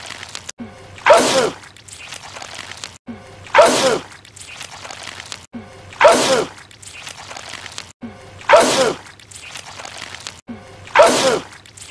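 A man's wet sneeze, repeated five times about every two and a half seconds, each one the same, with a voiced cry falling in pitch inside a spray of noise.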